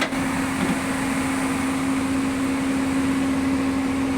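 An excavator's diesel engine running steadily, a constant hum with one even tone over a rumbling noise.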